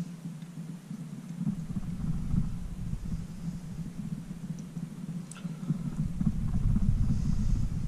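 Low, uneven rumbling and bumping handling noise as a bobbin of thread is wrapped around a fly held in a vise, growing heavier about a second and a half in, with a faint tick now and then.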